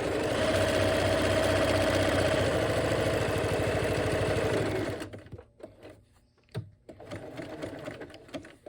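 Bernina 1130 sewing machine running steadily at speed, stitching a decorative stitch, then stopping abruptly about five seconds in. Quieter clicks and rustles of handling follow.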